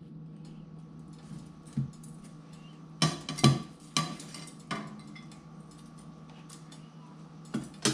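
Metal tongs clinking against a ceramic plate while fried milkfish is moved onto it: a cluster of sharp clinks about three to five seconds in, and two more near the end, over a low steady hum.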